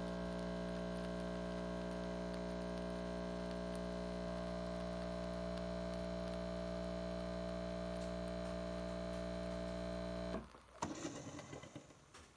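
A Nespresso Lattissima Pro's pump runs with a steady humming drone while it dispenses a cappuccino. It cuts off about ten seconds in, followed by a few short clicks and drips.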